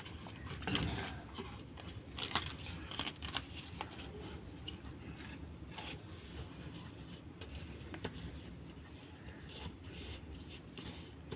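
A hand smearing thick gram-flour paste over a large taro leaf: faint, soft rubbing and scraping of paste and leaf, with a few light clicks in the first few seconds.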